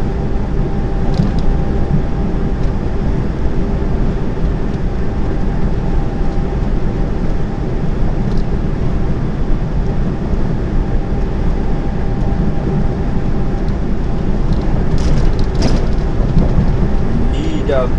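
Cab interior of a diesel lorry at cruising speed on the motorway: a steady, loud low rumble of engine and road noise with a faint steady hum over it. A couple of brief clicks come about fifteen seconds in.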